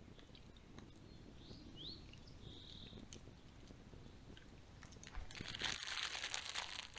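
Pop-Tart foil wrapper crinkling as it is handled and torn open, starting about five seconds in. Before that there are faint clicks and a short high chirp.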